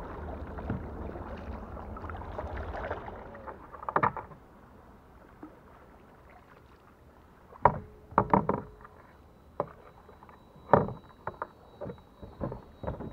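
Fishing kayak being paddled on the water: a steady hiss of wind and water at first, then a handful of short, sharp paddle splashes and knocks. The loudest come about four, eight and eleven seconds in.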